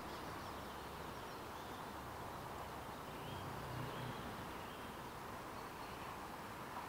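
Outdoor ambience: a steady hiss of background noise with a few faint bird chirps and a brief low rumble around the middle.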